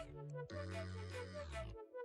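Background music with a melody over a bass line, breaking off briefly near the end.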